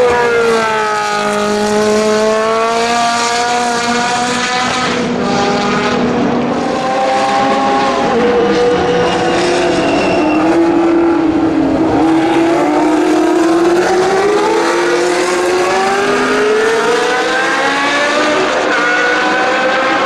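Historic racing car engines running hard on track. The engine note falls over the first couple of seconds as a car slows, holds roughly level through the middle, then rises steadily from a little past halfway as a car accelerates.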